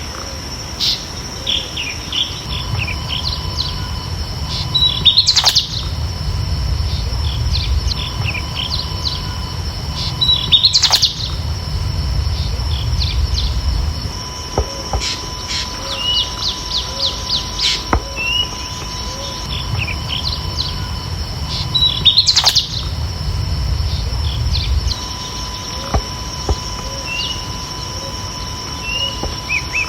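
A bird chorus, with many small birds chirping and trilling. A louder call stands out three times. A steady high-pitched hum runs underneath, and a low rumble comes and goes.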